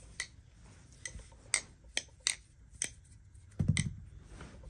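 Marcolo Comet balisong being flipped: a series of sharp, separate clicks as the handles swing and knock together, with a duller thump about three and a half seconds in.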